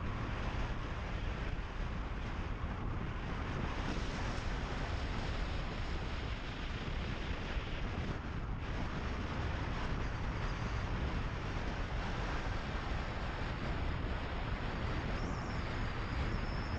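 Steady wind rush on an outside microphone over the low rumble of a car driving along a gravel road.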